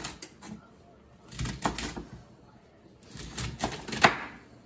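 Chef's knife chopping asparagus spears on a wooden cutting board: two quick runs of cuts, about a second and a half in and again from about three seconds, with the loudest chop near the end.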